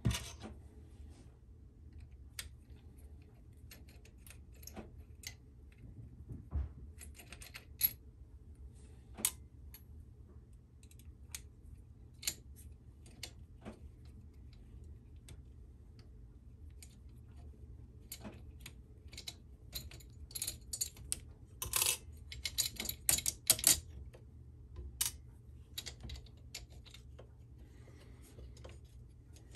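Scattered small metallic clicks and taps of a hex Allen key working the bolts of an Ender 3 V2 gantry wheel plate, with a busier run of clicks about two-thirds of the way through, over a faint steady low hum.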